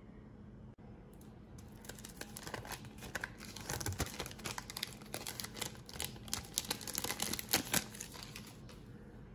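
Thin plastic film crinkling and crackling as it is peeled off a slice of processed cheese. It starts about a second and a half in and stops near the end.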